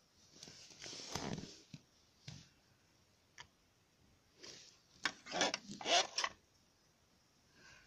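Plastic fidget spinners being handled on a table: a scraping rub about a second in, a few separate clicks and knocks, then a quick run of clacks and scrapes about five to six seconds in.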